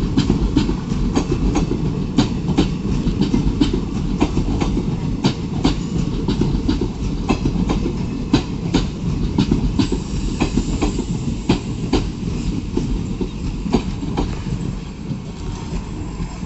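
Passenger express train rolling past, its coach wheels clacking over rail joints in a rapid, irregular clatter over a steady rumble, easing off a little near the end.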